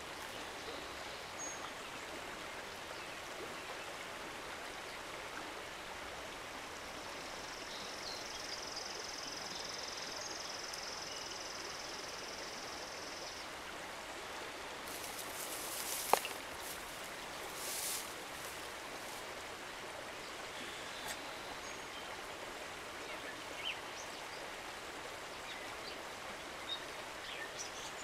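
Steady hiss of running water from a nearby river. A thin, high steady whine runs for several seconds a few seconds in. About halfway through come two short breathy puffs and a sharp click as a smouldering tinder bundle is blown into.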